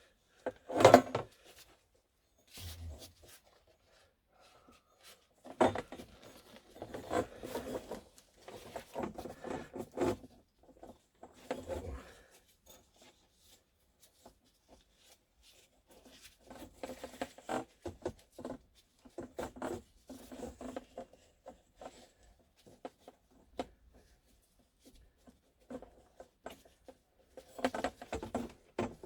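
Rubbing, rustling and tapping of a wet exhaust-wrap strip being wound by hand around a diesel heater's exhaust pipe, coming in uneven spells, with one sharp knock about a second in.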